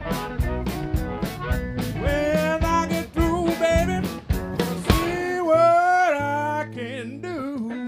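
A live blues-rock band playing electric guitars, bass and drums, with a bending, wavering lead melody over the top. About five seconds in the drums drop out while the band holds a sustained chord.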